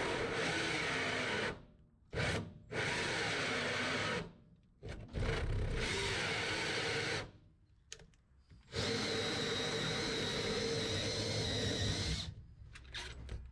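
Cordless drill driving a large hole saw through the underside of a motorhome floor, cutting in five bursts of about half a second to four seconds with short pauses between, each with a steady motor whine.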